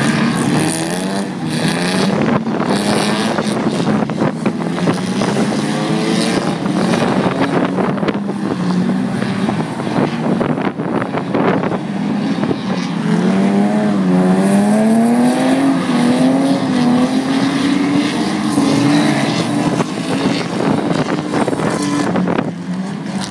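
Drift cars' engines revving hard as they slide through the corners, the engine note repeatedly rising and falling with throttle and gear changes. Near the middle one engine climbs steadily in a long rising rev for several seconds before dropping back.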